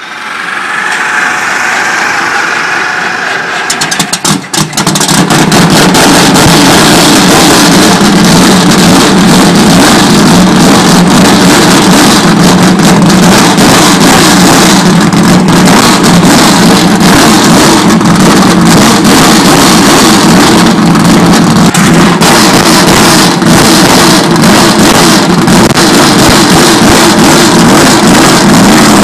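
Go-kart engine running loud and steady. It comes in about four seconds in, after a quieter hiss.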